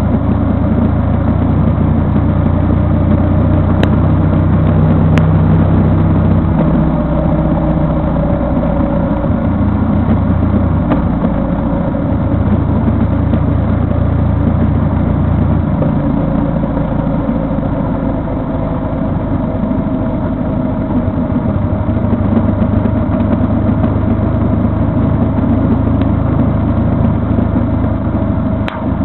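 A vehicle engine running steadily while on the move, with its low hum changing a few times as the speed varies.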